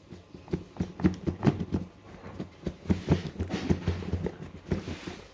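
Irregular light taps, knocks and rustles of hands handling a smartphone box and its packaging while unboxing.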